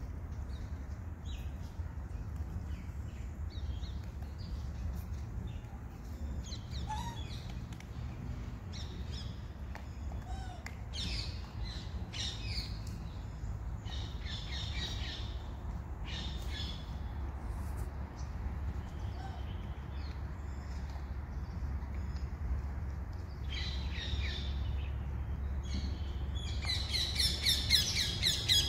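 Birds chirping in short bursts on and off over a steady low rumble; about two seconds before the end a loud, rapid run of shrill squeals starts.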